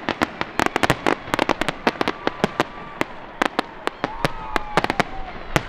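Aerial fireworks crackling and popping: a rapid, irregular string of sharp cracks from bursting shells.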